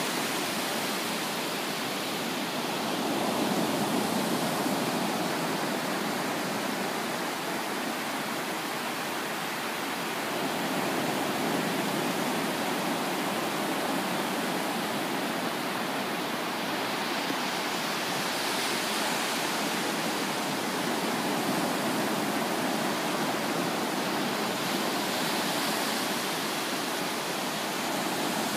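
Ocean surf breaking and washing up a flat sandy beach: a steady rush of water that swells gently every several seconds as each wave comes in.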